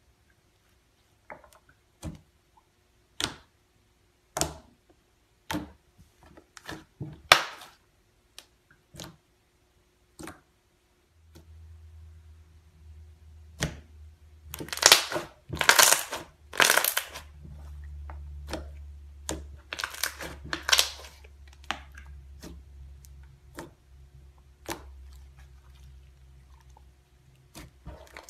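Pink slime worked by hand: at first scattered sharp pops and clicks as fingers poke and press into it, then, after about eleven seconds, longer crackly squelching bursts as it is squeezed and kneaded.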